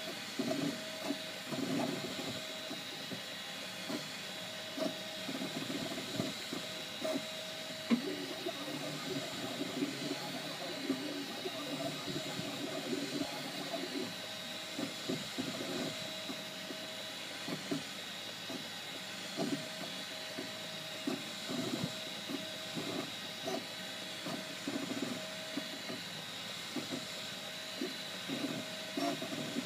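Ultimaker 2 3D printer at work: its stepper motors whir in short, irregular bursts as the print head moves back and forth, over the steady hiss of the print-head cooling fans, with an occasional sharp tick.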